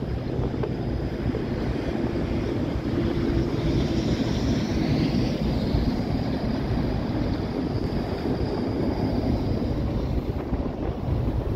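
Wind buffeting the microphone: a steady, heavy rumble of wind noise.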